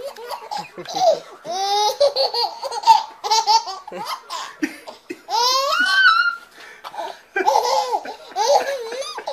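A baby laughing hard in repeated high-pitched bouts, with short breaths and pauses between them.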